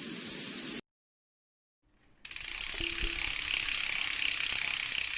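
Mountain bike rear freewheel hub buzzing: a very fast, even ratchet clicking as the wheel spins without pedalling. It comes in about two seconds in, after a short hiss that cuts off abruptly under a second in.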